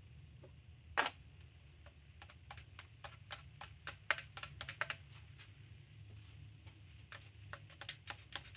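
Small metal parts clicking and tapping as linkage pieces are fitted onto a Carter Thermoquad carburetor: one sharp, louder click about a second in, then a quick, irregular run of light clicks, over a low steady hum.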